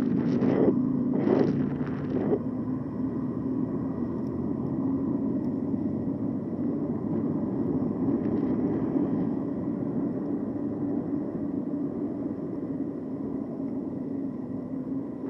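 Moving e-bike ride noise: a steady rumble of wind and tyres on the road with a faint low hum, with a few louder swells in the first two seconds.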